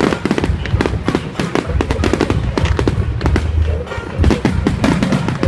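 Fireworks going off in rapid succession: many sharp bangs and crackles, close together and uneven, over a heavy low rumble.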